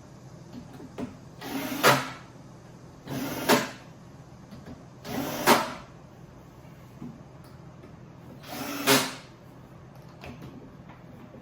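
A power screwdriver driving screws into the drawer panels four times, each run building to a sharp stop as the screw seats.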